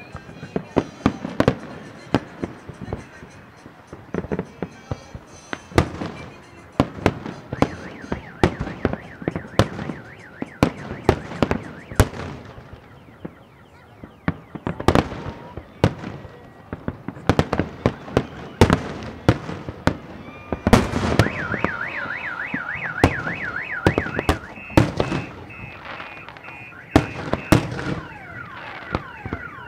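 Aerial firework shells bursting in quick succession, a long run of sharp bangs and crackles. About twenty seconds in, a car alarm starts up with a rapidly warbling tone that keeps going over the bangs.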